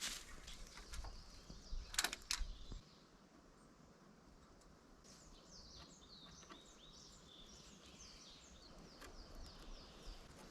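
Rustling and a few sharp clicks in the first few seconds, then a small songbird singing a rapid run of short, high chirps.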